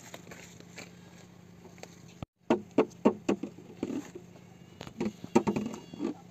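A donkey being loaded with a pack saddle: a string of sharp, irregular knocks and thumps, a few a second, starting about two and a half seconds in after a brief dropout.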